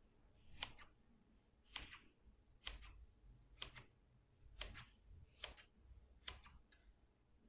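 Scissors snipping short cuts into the folded edge of a strip of craft foam (foami): about seven faint, crisp snips, roughly one a second.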